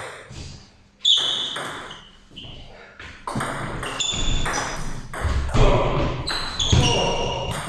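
Table tennis ball being struck back and forth in a rally, sharp pinging clicks off the bats and table: a single hit about a second in, then a quick run of hits from about three seconds in.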